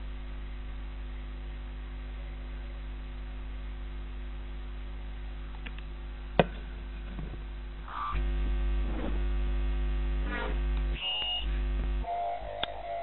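Steady electrical mains hum, with a single sharp click about six seconds in. The hum grows louder and fuller from about eight seconds in, with a few short tones over it.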